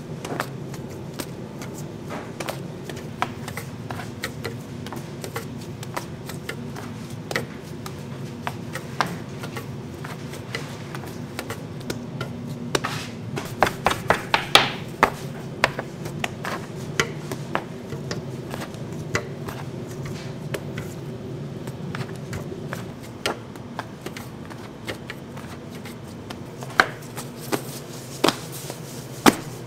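Bakery bench work on bread dough: irregular sharp taps and knocks on the work surface, with a quick run of them about thirteen to fifteen seconds in, over a steady low hum of kitchen equipment.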